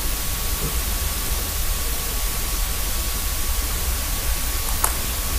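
Steady hiss of recording noise with a faint steady high whine, and one short sharp click near the end.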